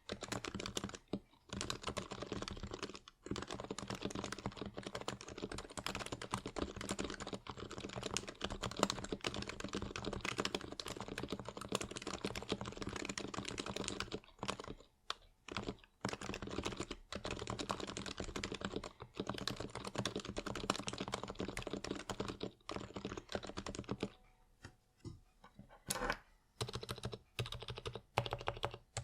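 Continuous typing on a Norbauer Sunset Boulevard Heavy Grail, an HHKB-layout Topre keyboard with 55 g Realforce domes and lubed purple sliders, giving muted keystrokes. The typing runs in dense bursts with brief pauses and thins out for a couple of seconds near the end.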